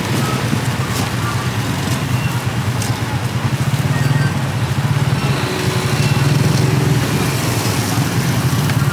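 Steady street traffic noise, with motorbike engines running, and faint voices in the background.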